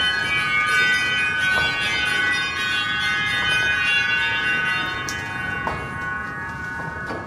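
Stage music: a sustained, shimmering chord of many high tones with a few soft strokes, dropping in level near the end.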